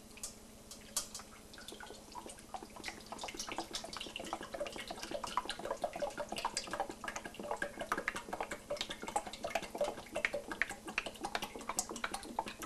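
Vegetable oil poured from a plastic gallon jug into a stainless steel pan with a wire fry basket: a continuous stream splashing and trickling into the pan, getting busier a couple of seconds in.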